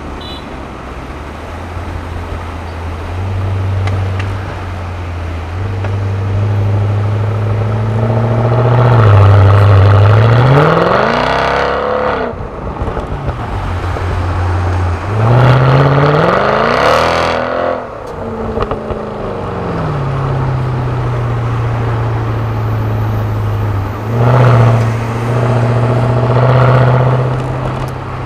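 Mercedes-Benz CL63 AMG's naturally aspirated 6.3-litre V8 through its stock exhaust, heard from inside the cabin: it runs low and steady, then revs up and drops back twice, with a shorter blip of the throttle near the end.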